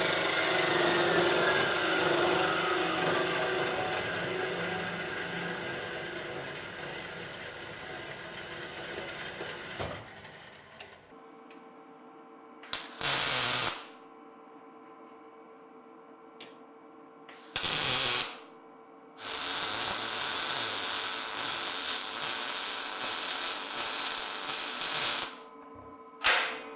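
Metalworking power tools: a machine running, with a falling whine as it winds down, fading out over the first ten seconds. A steady hum follows, with a short burst of loud tool noise twice and then one lasting about six seconds near the end.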